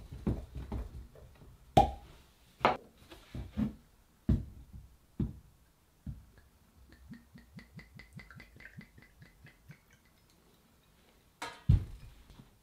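Knocks and clicks as the cap comes off a glass gin bottle, then gin glugging out of the tilted bottle into a shot glass, a quick, even run of gulps lasting about four seconds. A loud knock near the end as the bottle is set back down on the bar.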